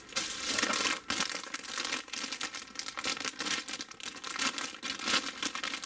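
Clear plastic bag around plastic model-kit sprues crinkling and crackling as the parts are handled through it.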